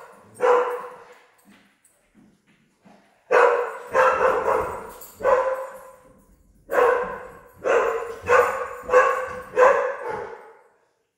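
A dog barking, single barks repeated in two runs with short pauses between them.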